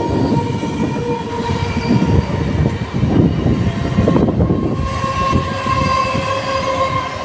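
Electric multiple-unit local train passing close by, its wheels running over the rails with a rhythmic clatter. A steady high tone sounds through the second half.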